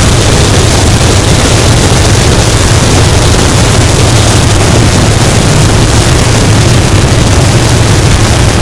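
Harsh noise wall: a loud, unchanging wall of static hiss spread across the whole range, over a heavy, steady low rumble.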